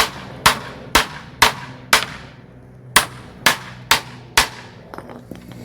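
Hammer driving nails into a wooden plank: nine sharp blows about two a second, a run of five, then after a short pause a run of four.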